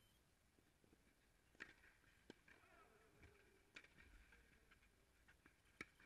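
Faint tennis rally: four sharp hits of a tennis ball, a second or two apart, the loudest near the end as the near player strikes the ball.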